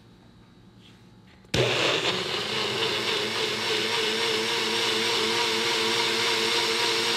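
NutriBullet personal blender switching on about a second and a half in and running steadily, puréeing strawberries and water into a thin red liquid.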